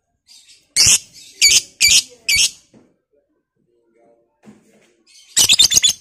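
Black-masked lovebird giving loud, shrill chirps: four separate calls in the first half, then a quick rattling run of about five chirps near the end.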